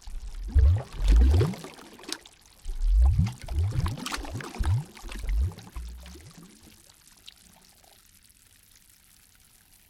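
Lake water sloshing and glugging in a run of short bursts over the first six seconds, then dying down to quiet.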